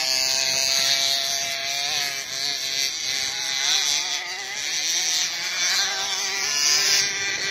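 KTM 65 two-stroke motocross bike's engine revving, its note rising and falling again and again as the throttle is worked along the track.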